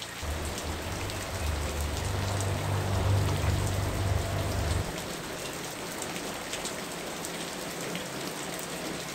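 Steady heavy rain falling on the ground, roofs and trees. A low rumble sits under the rain for about the first five seconds, then stops suddenly.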